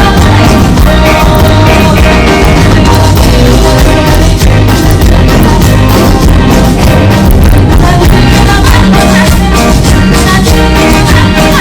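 Loud band music with a steady beat.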